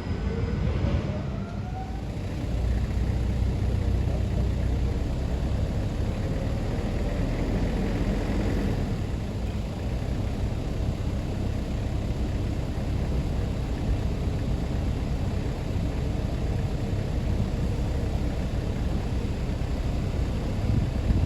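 Tugboat's diesel engine running steadily, a continuous low drone, with a faint rising tone in the first couple of seconds.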